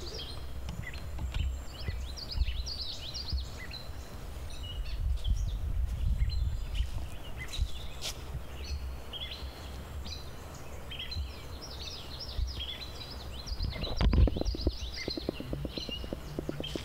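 Several songbirds chirping and singing in the trees over a steady low rumble, which gets louder for a couple of seconds near the end.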